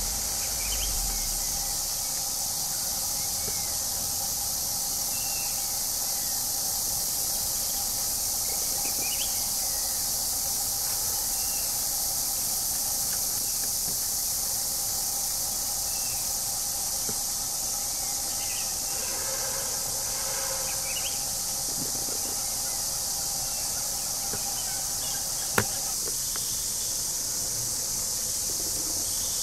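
Steady high-pitched chorus of forest insects, with scattered faint bird chirps and one sharp click about twenty-five seconds in.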